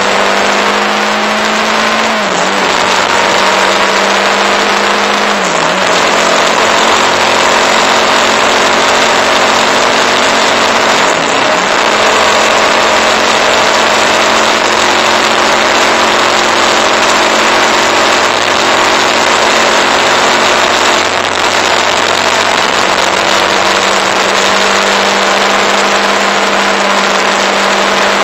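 Motorcycle engine running at a steady cruise under heavy wind rush on the microphone; its pitch dips briefly and recovers a few times in the first dozen seconds.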